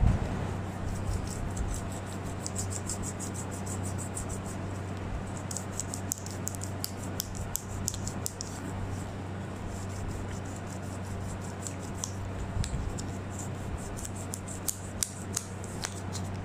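Quick runs of light scratching strokes as a small red-and-yellow brass cross is worked over by hand, with a few sharper clicks near the end, over a steady low hum.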